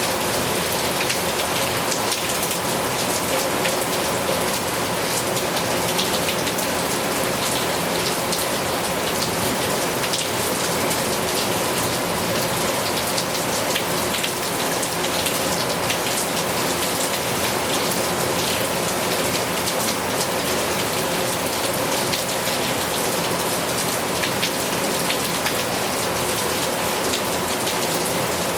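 Heavy rain falling steadily, a dense, even patter of drops hitting a surface with no thunder.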